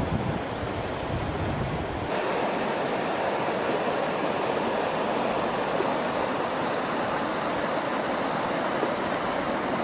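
Steady rush of churned river water. For the first two seconds wind rumbles on the microphone, then it changes abruptly to a brighter, even hiss of moving water.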